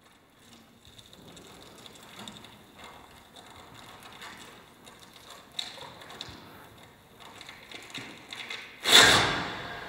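Velcro on the performer's costume and on the inside of the cone rubbing and catching: a faint crackling with scattered clicks, then a sudden loud rasping burst near the end that dies away over about a second.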